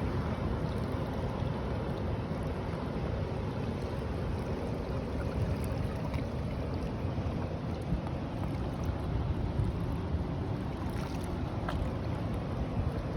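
Ocean surf washing steadily on a beach, mixed with a low rumble of wind buffeting the microphone.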